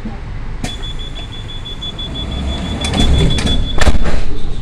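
Electric commuter train's door-closing warning: a high, rapid beeping tone over the train's low hum. Near the end come a few clicks and a heavy thud as the sliding doors shut.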